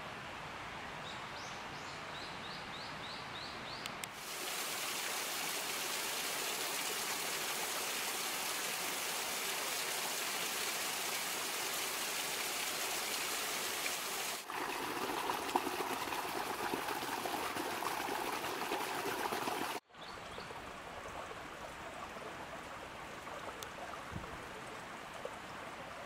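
Water of a shallow stream running and trickling over stones, a steady rushing that starts about four seconds in, turns fuller and lower at about fourteen seconds, and cuts off sharply near twenty seconds to quieter outdoor ambience.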